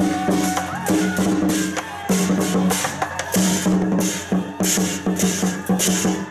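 Lion dance music: repeated drum strokes and cymbal crashes over a sustained low melody that shifts between notes.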